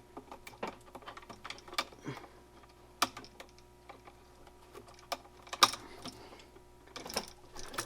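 Irregular small clicks and rustles of electrical wires and push-in wire connectors being handled, with a sharp click about three seconds in and the loudest click a little past halfway.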